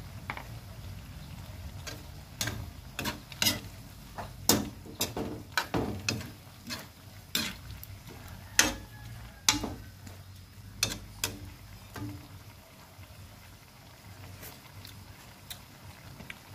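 Cooking utensil clinking and scraping against a metal wok while squash and malunggay leaves in coconut milk are stirred: irregular sharp clicks, most of them in the first two-thirds, thinning out near the end.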